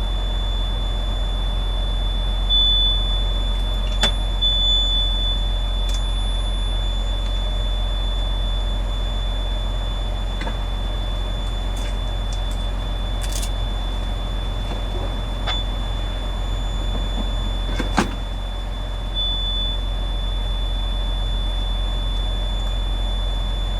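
Continuous high-pitched electronic alarm tone from a warning buzzer in a truck cab, holding one pitch throughout, over a steady low engine rumble, with a few short clicks and knocks.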